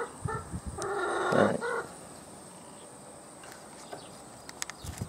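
A chicken calling: a short call at the start, then a louder, longer one about a second in. After that only a few faint clicks are heard.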